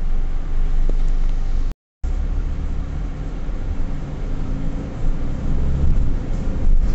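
Car interior rumble of engine and road noise while driving, cut by a brief total dropout of sound about two seconds in.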